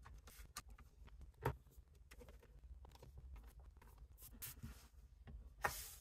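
Faint handling noises on a laptop's bottom cover: hands rubbing and pressing on the panel, with scattered small clicks, a sharper tap about a second and a half in, and brushing sounds near the end.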